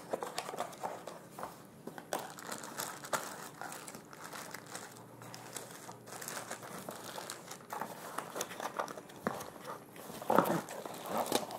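Clear plastic packaging bags crinkling and a cardboard box rustling as a new product is unpacked by hand, with many small irregular rustles and taps.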